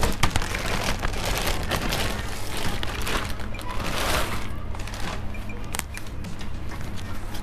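Packaging crinkling and rustling as it is handled and opened, with background music underneath.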